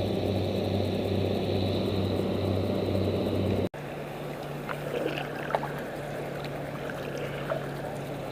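Diesel engines of a river towboat pushing barges, running with a steady low hum. About three and a half seconds in the sound breaks off, then a quieter steady engine hum continues with faint light splashes of canoe paddles.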